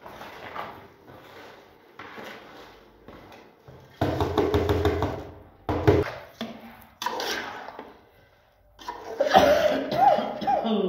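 Metal spoon scraping and knocking against a metal cooking pot as rice is spooned in and spread, in repeated bursts. The bursts are louder from about four seconds in, and a short squealing scrape comes near the end.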